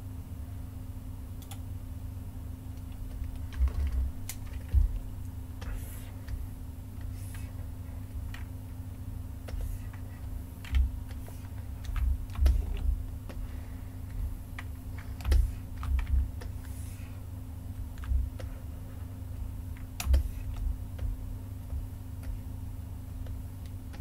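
Irregular clicks of a computer mouse and keyboard, about a dozen, some with a dull thump, as deformer points are placed one by one. A steady low hum runs underneath.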